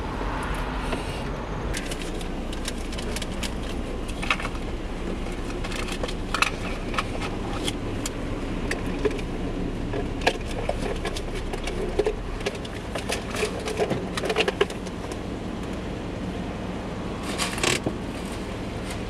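Car engine running, heard from inside the cabin as a steady low rumble, with scattered light clicks and metallic jangling.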